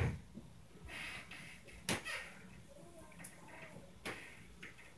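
Stomping on the floor of the apartment upstairs, heard from below as three sharp thuds about two seconds apart, with fainter knocks between.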